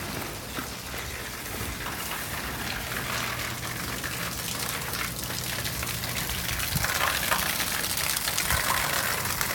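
Water from a running garden hose pouring off a roof edge and splashing down in a steady spatter, which grows louder in the last few seconds.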